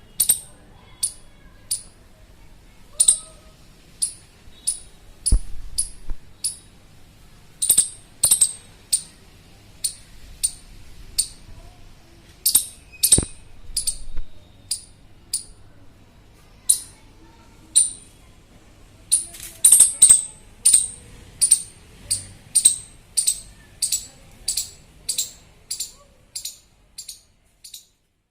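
Indian palm squirrel calling: a long series of sharp, very high-pitched chirps, about one or two a second, coming faster in a steady run near the end before stopping. The recordist takes it for a call to a companion lost from its group. Two low knocks sound in the first half.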